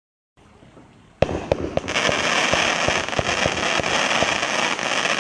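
Pyro Planet 'Magic Show' 500-gram consumer firework cake firing. About a second in, several launch thumps come in quick succession, then a loud steady hiss of sparking tails runs on with more shots thumping out through it.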